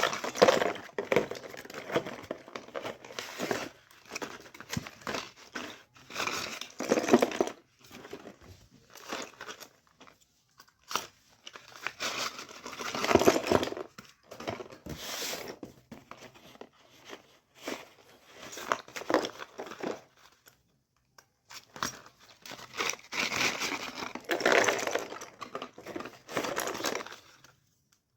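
Packaging being crinkled and torn by hand in irregular bursts with short pauses between them.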